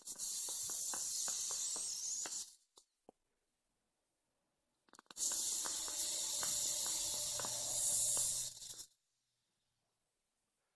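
Two draws on a freshly rebuilt Aspire BDC clearomizer: air hissing through the head while e-liquid crackles and pops on the hot cotton-wicked coil, a short draw at the start and a longer one from about five seconds in.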